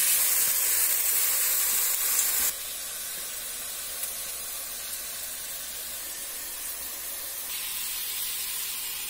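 Kitchen tap water running into a glass at the sink, a steady hiss that cuts off suddenly about two and a half seconds in. A quieter steady hiss follows, from a gas stove burner under a comal of roasting green chiles.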